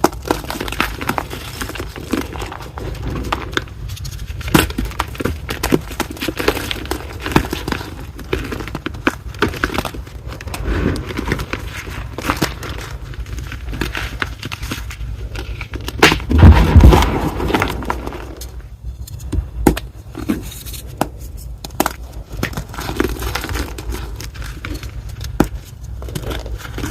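Reformed gym chalk block being crushed and crumbled, a dense run of gritty crunches and crackles. A heavier, louder crunch comes about two-thirds of the way through.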